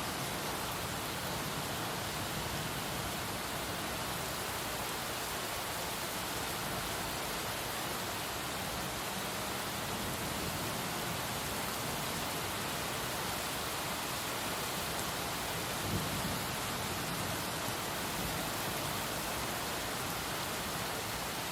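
Heavy rain pouring steadily, an even hiss of water. A brief low thump comes about three-quarters of the way through.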